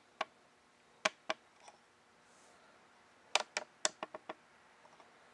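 A few sharp mechanical clicks: two about a second in, then a quick run of about five a little past three seconds, with no engine running.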